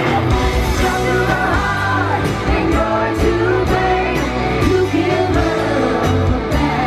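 Live pop music: a singer with a band, amplified on a concert stage and heard from among the audience.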